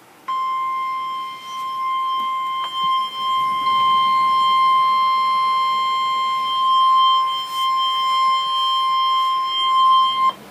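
NOAA Weather Radio 1050 Hz warning alarm tone: a single steady, high, unbroken tone held about ten seconds, wavering a little in loudness, then cutting off suddenly. It signals that a warning message, here a severe thunderstorm warning, follows.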